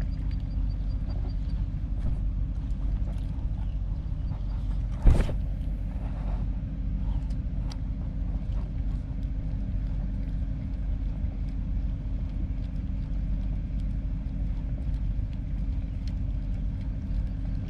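Steady low engine rumble with a constant hum, from a ship or boat engine running in the harbour, broken by one sharp knock about five seconds in.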